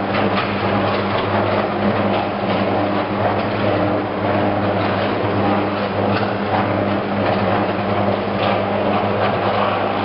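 Ladle furnace's graphite electrodes arcing in the molten steel: a steady crackling noise over a deep electrical hum.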